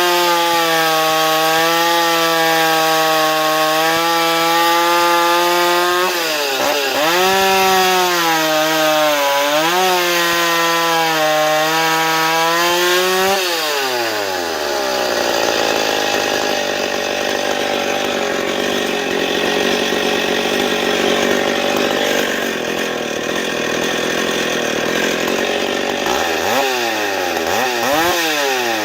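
Stihl 031 AV two-stroke chainsaw with a dual-port muffler running at full throttle, its pitch dipping briefly twice. About 13 seconds in the pitch drops sharply and the engine runs rough and lower while the saw cuts wood under load. Near the end it revs up and down freely a couple of times.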